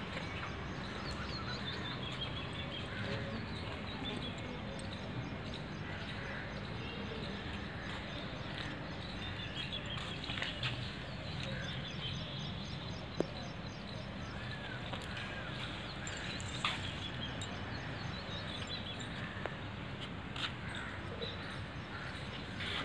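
Small birds chirping and calling on and off over a steady low outdoor background rumble, with a few sharp clicks.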